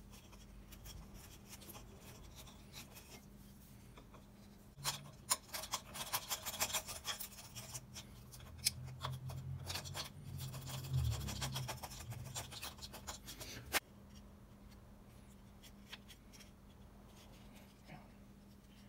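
Quick back-and-forth scraping of a slim hand file against the wood of an old handsaw handle, working out the slot for the blade. The strokes are faint at first, get louder about five seconds in, and stop with a sharp click near fourteen seconds.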